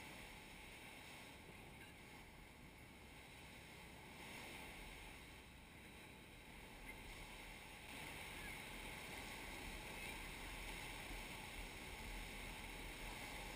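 Faint, steady wash of surf breaking on a beach, a little louder from about eight seconds in.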